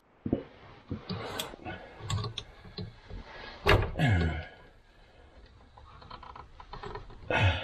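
Scattered light clicks and knocks of metal parts being handled and pushed into place by hand, with one louder knock about halfway through, as a cradle lockout insert is worked into the rear cradle bushing.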